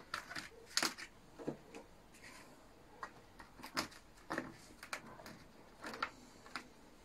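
Round plastic trays of an electric food dehydrator being handled and stacked, with scattered light clicks and knocks as the trays are set onto one another.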